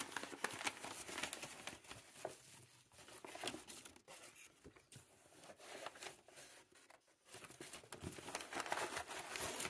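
Brown kraft packing paper crinkling and rustling as hands dig through a cardboard shipping box and work its flaps, an irregular crackle that pauses briefly twice.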